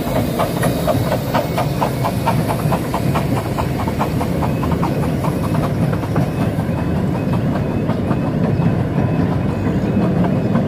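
Passing 15-inch gauge miniature steam locomotives, with regular exhaust chuffs and steam hiss that fade out after about five seconds. The low rumble and clatter of the carriage wheels on the rails follows.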